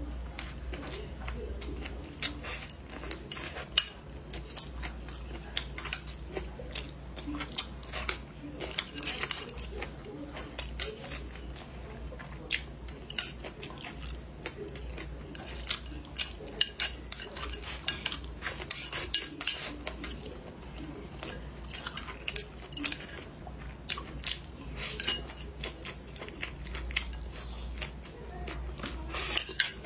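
Chopsticks clicking irregularly against a ceramic bowl, with close-miked chewing of mouthfuls of rice and green chili peppers. A steady low hum runs underneath.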